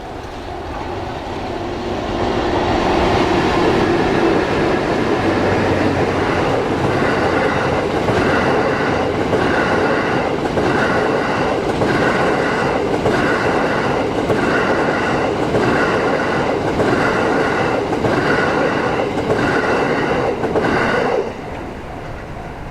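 The Cassiopeia Cruise passenger train passing close by, its wheels clattering over the rails with a regular beat about once a second as each carriage goes past. The noise builds up over the first couple of seconds and drops away suddenly near the end as the last carriage clears.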